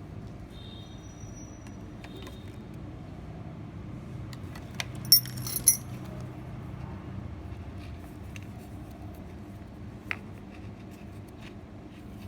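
Small hard objects clinking and tapping, with two sharp, bright metallic clinks about five seconds in and a lighter click near the end, over a steady low hum.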